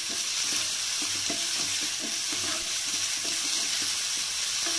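Chopped onion, tomato and ginger-garlic paste sizzling in oil in a cast-iron skillet while a wooden spatula stirs and scrapes across the pan in repeated strokes.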